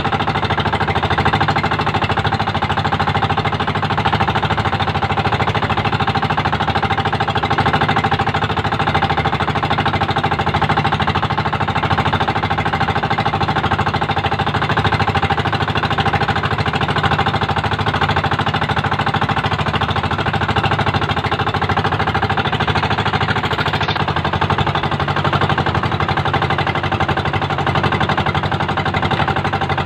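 Small engine of a motorized outrigger boat running steadily at trolling speed, with a fast knocking beat and an even, unchanging note.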